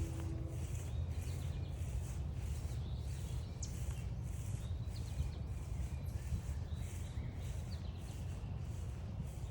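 Walking footsteps on a trail, a soft crunch about twice a second, over a steady low rumble, with small birds chirping faintly now and then.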